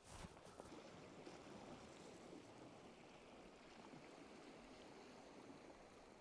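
Near silence: a faint, steady outdoor hiss, with a few soft footsteps right at the start.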